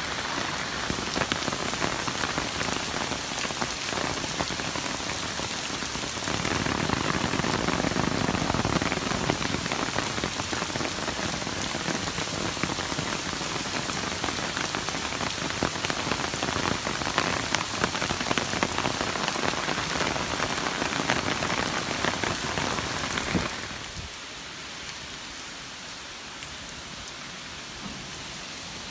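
Heavy typhoon rain pouring down and splashing on a wet street, a dense steady hiss that grows louder about six seconds in. Near the end it drops suddenly to a softer, steadier rain.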